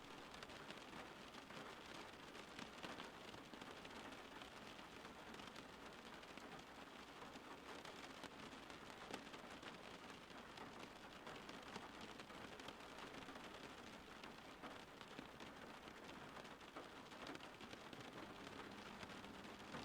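Steady, quiet rainfall: an even hiss of rain with many small drop ticks.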